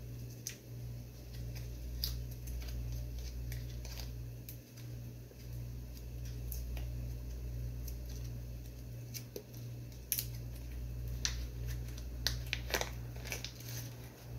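Small foil-wrapped butter portions being snipped open and unwrapped by hand: scattered light clicks and crinkles, busiest near the end, over a steady low hum.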